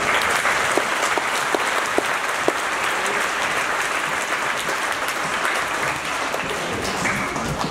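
Audience applauding: many people clapping steadily, tapering off near the end.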